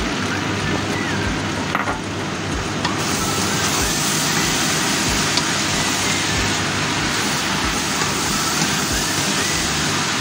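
Pancit canton noodles, vegetables and pork sizzling steadily in a wok while a spatula tosses them, with a few light clicks of the spatula.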